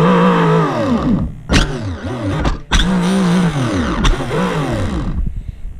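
Electric motor of an HSP H100 RC short-course truck whining as the throttle is pulsed: a long rise and fall, a few quick blips, then another long run, with a few sharp clicks between them. The motor's pinion is not meshing tightly with the worn main spur gear, whose teeth are badly stripped, so the motor spins without driving the wheels.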